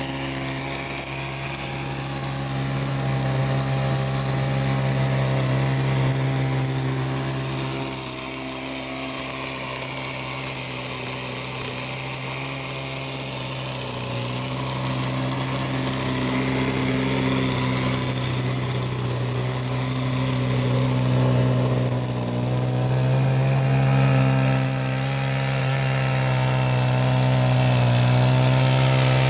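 Chainsaw engine running steadily at high speed under load as a chainsaw mill rips lengthwise through a large log, its pitch dipping slightly now and then as the cut bogs it.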